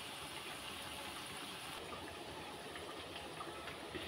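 Tomato chakkuli frying in hot oil in a steel kadai: a steady sizzling hiss with scattered small pops.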